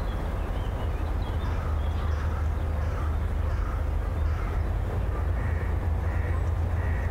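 Outdoor ambience: a steady low rumble with faint short bird calls now and then.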